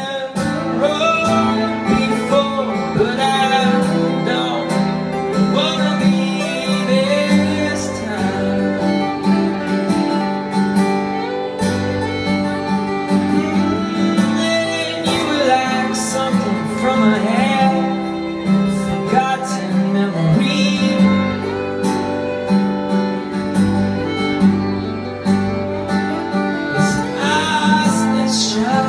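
A fiddle and two acoustic guitars playing a song together, the fiddle's bowed melody gliding over the steady guitar accompaniment.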